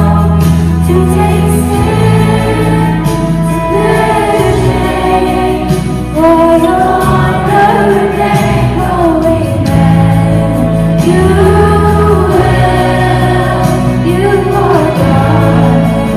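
A youth choir singing a song over instrumental accompaniment, with long held bass notes that change every couple of seconds.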